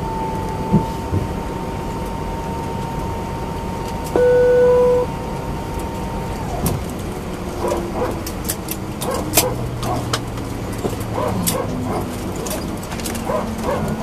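Airbus A320 cabin at the gate: a steady engine whine that winds down in pitch about six and a half seconds in, as the engines spool down. A single loud cabin chime sounds about four seconds in. Scattered clicks and short yelping calls follow.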